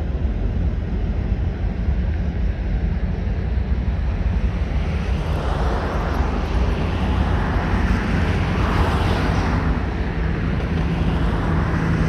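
Freight cars of a manifest train rolling past on the rails, a steady low rumble with a hiss of wheels on rail that grows louder about halfway through.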